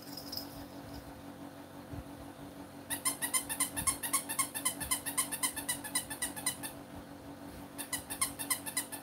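Plush baby rattle toy (a hanging bee) shaken by hand, making a rapid jingling rattle at about ten shakes a second. It starts about three seconds in, runs for nearly four seconds, and comes back for a shorter burst near the end.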